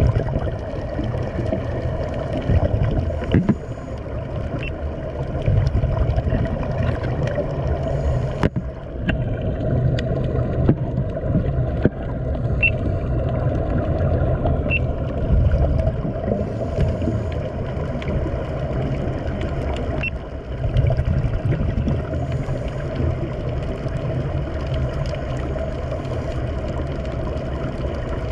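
Muffled underwater rumble with air bubbling from a sea-walking helmet's air supply, steady throughout with a brief drop about eight seconds in and occasional faint clicks.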